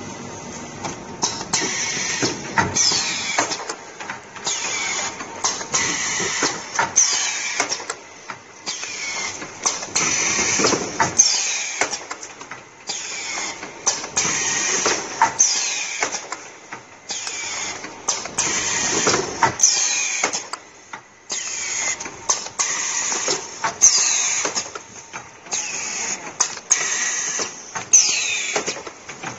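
Automatic OPP tape-roll packing machine running through its cycle, with short hissing bursts and sharp clacks repeating about every one to two seconds.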